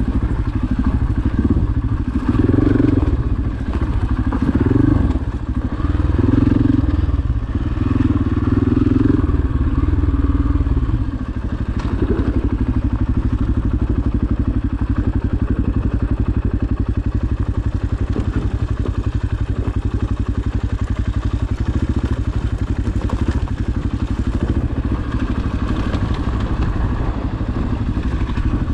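Single-cylinder four-stroke dirt bike engine on a trail ride, the throttle opened and closed repeatedly for the first ten seconds or so, then running at a steadier, lighter throttle.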